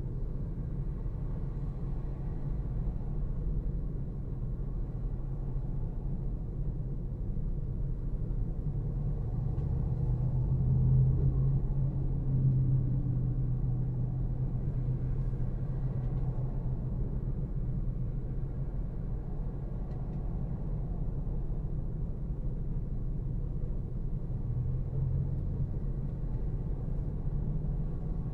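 Car cabin rumble: a steady low hum of engine and road noise heard from inside the car, louder for a few seconds a little before the middle.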